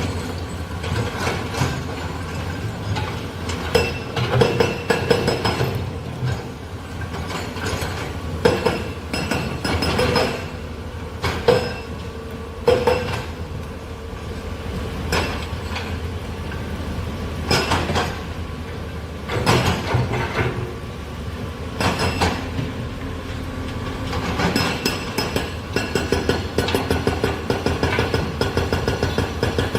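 Heavy earthmoving machinery at work: a steady engine rumble with repeated sharp metallic clanks and knocks.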